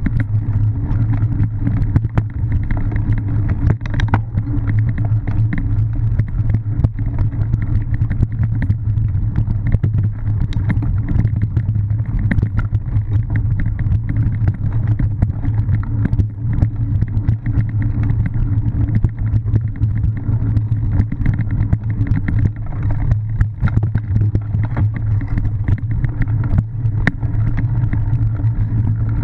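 Steady, muffled rumble and rattle of a camera riding on a cyclocross bike moving fast over rough dirt, leaves and grass, with frequent short knocks from bumps in the ground.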